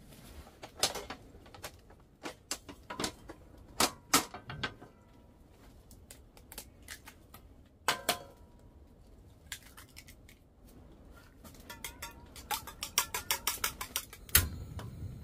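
Kitchenware clinks and eggs tapped on the rim of a small cup, then chopsticks beating eggs in the cup in a fast run of clicks, about seven a second, ending in a heavier knock.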